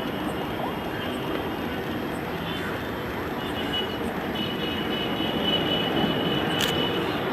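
Airbus A330 jet engines running: a steady rumble with a thin high whine that grows a little louder over the last few seconds. A single sharp click sounds near the end.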